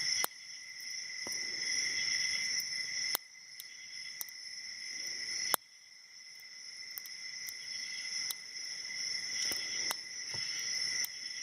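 Light, scattered clicks of a shallow hook pick lifting the pins of a six-pin padlock core under a tension wrench, with a few sharper clicks. Pin 2 or 3 is being pushed too high. A steady high-pitched chirring, like crickets, runs underneath.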